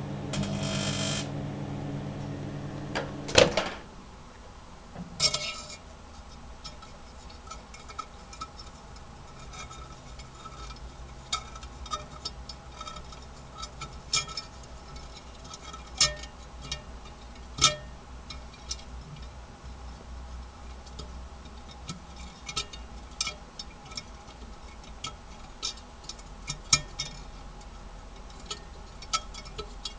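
Microwave oven running with a steady hum, which stops with a loud click about three and a half seconds in. Scattered light ticks and clicks follow.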